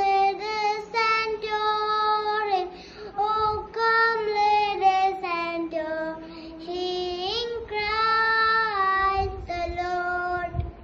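A young boy singing alone without accompaniment, holding long notes; the singing stops near the end.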